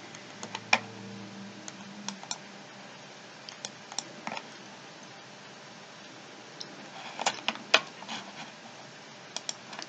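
Scattered sharp clicks from working a computer's mouse and keys, coming in irregular clusters over a steady faint background noise.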